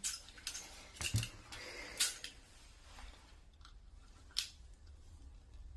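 Several sharp plastic clicks at irregular intervals, with light rustling between them, as a phone is pushed into the clamp of a chest-strap phone holder.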